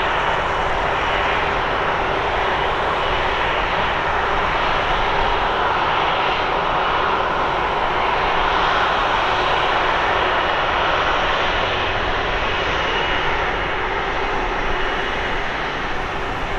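Airbus A330-300's Rolls-Royce Trent 700 turbofans running steadily as the airliner taxis past: an even jet rush with a faint low hum and a thin high whine, swelling slightly near the middle as the aircraft faces head-on.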